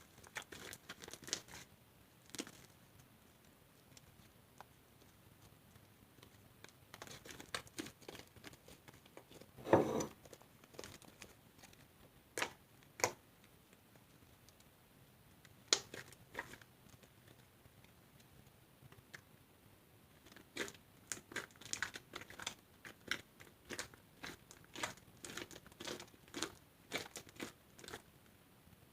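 Fluffy slime being stretched and squeezed by hand, giving irregular small pops and crackles as air pockets in it burst, in scattered clusters that grow busier near the end.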